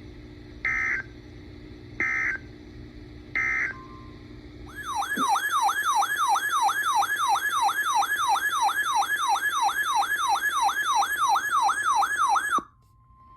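Three short bursts of digital alert data, about a second and a half apart: the EAS end-of-message signal that closes the warning, over a faint hum. About five seconds in, a loud electronic siren tone starts, warbling rapidly up and down about three times a second for nearly eight seconds before cutting off suddenly.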